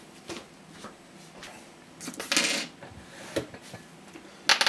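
Small metal parts and tools clinking and rattling as they are handled on a silicone bench mat: a few light clicks, a short rustling clatter about two seconds in, and a louder clatter near the end.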